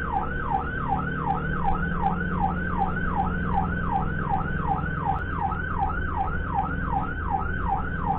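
Emergency vehicle siren in fast yelp mode, its pitch sweeping up and down about three times a second, over a steady low vehicle hum.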